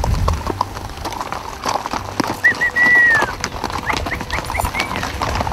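Hooves of cattle and horses clopping on a gravel track. About two and a half seconds in, a clear whistle sounds: two short notes and then a long held note that falls at the end, the loudest sound here. It is followed near the end by a quick run of short rising whistles.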